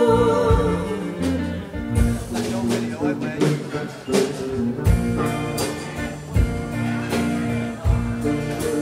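Live band playing a Khmer classic song: a held sung note ends just after the start, then the band carries on with bass, guitar and regular drum beats.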